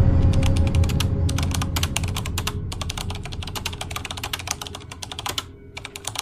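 Computer keyboard typing sound effect: rapid key clicks, breaking off briefly twice. Underneath, the tail of low music fades out.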